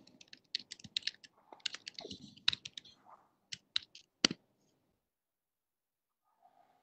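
Computer keyboard being typed on, a run of irregular key clicks that stops about four and a half seconds in.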